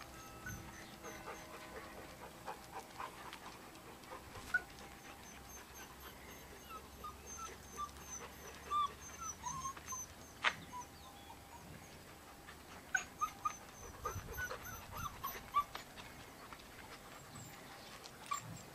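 Six-week-old golden retriever puppies whimpering and yipping in short, high squeaks that bend in pitch, scattered irregularly throughout.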